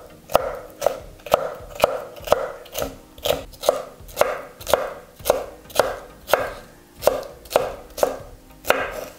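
Kitchen knife dicing sweet bell pepper strips on a wooden cutting board: a steady run of sharp chopping knocks, about two a second.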